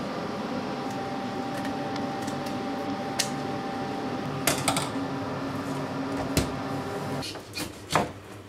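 A steady mechanical hum with a few sharp clicks and a low knock as the fish and knife are handled on the cutting board; the hum cuts out about seven seconds in.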